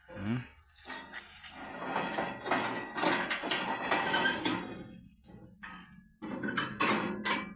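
Irregular metal clanks and rattles from a homemade steel tool carrier for a walking tractor, as its plow lift lever and chain are worked.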